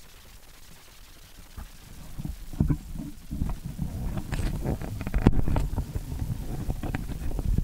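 Handling noise on a 360fly camera's built-in microphone: low rumbling and rubbing with many sharp knocks and clicks as the camera is gripped and moved by hand, starting about two seconds in.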